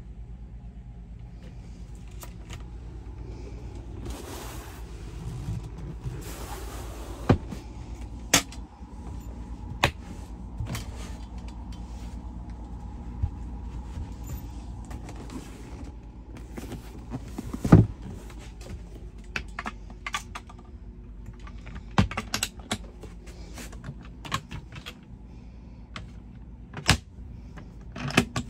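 Scattered clicks and knocks of cabin doors, cabinet doors and fittings being handled, with brief rustling, over a steady low hum.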